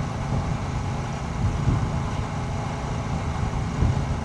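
Royal Enfield Shotgun 650's 648 cc parallel-twin engine running steadily while the motorcycle cruises at speed, with rushing air and road noise over it.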